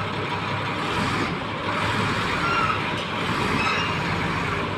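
Bulldozer running and moving, with its steel crawler tracks clanking and giving a few brief high squeals midway.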